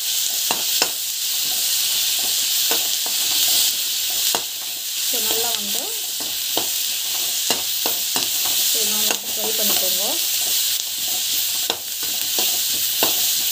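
Chopped onions, garlic and dried red chillies sizzling as they fry in oil in a pan, a steady hiss. A spoon stirs through them, giving many short clicks and scrapes against the pan.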